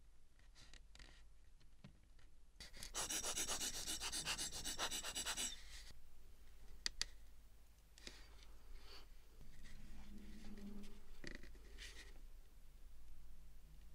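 Close-up rubbing and scratching of a tool or cloth on small watch parts at the bench. It starts with a fast run of even scratching strokes lasting a couple of seconds, then gives way to scattered small clicks and lighter rubbing.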